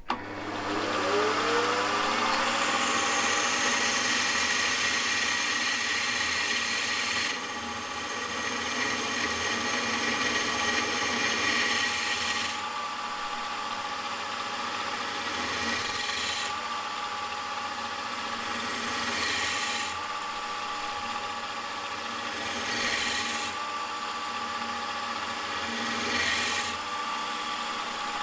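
Milling machine spindle spinning up, then an 11/64-inch twist drill drilling a stud hole through a finned model-engine cylinder. Steady motor whine under the cutting noise, with a high squeal from the drill that comes and goes in the second half.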